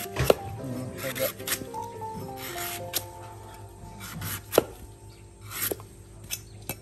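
A cleaver chopping and shaving the green husk off young coconuts: irregular sharp chops with scraping slices between them, over soft background music.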